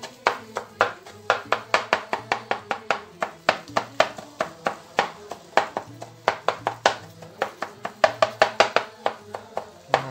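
Kitchen knife chopping soft cooked eggplant on a plastic cutting board: a quick, uneven run of blade strikes on the board, about three or four a second.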